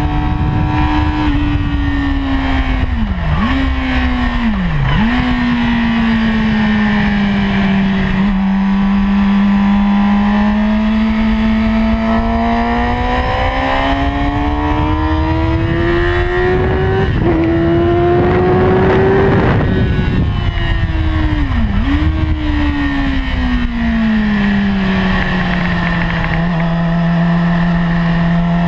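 2008 Yamaha YZF-R6's 599 cc inline-four engine at speed, heard from the bike. The revs rise and fall with the throttle, with a few quick sharp drops in engine note, and settle lower and steady near the end. A rush of wind noise swells around the middle.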